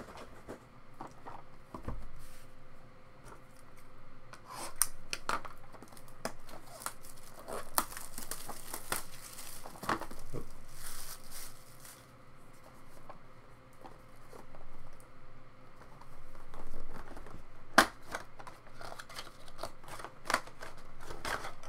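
Plastic wrapping being torn and peeled off a trading-card box by hand: irregular crinkling and rustling with scattered small clicks, and one sharp click late on.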